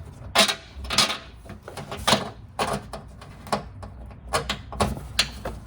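Irregular clicks and knocks of hand tools and fasteners, about seven at uneven intervals, as the clips and bolts holding a car's plastic under-engine splash shield are worked loose.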